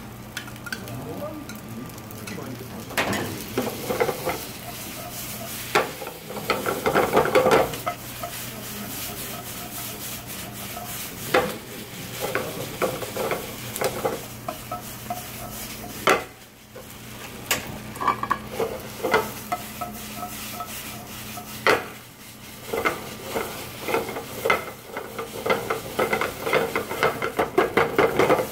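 Metal slotted spatula stirring and tossing ketchup fried rice in a skillet over a gas flame, clinking and scraping against the pan again and again, with the rice sizzling.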